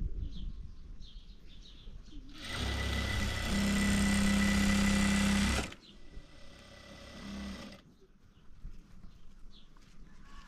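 Sewing machine running: one steady run of about three seconds, then a second, quieter run of about two seconds.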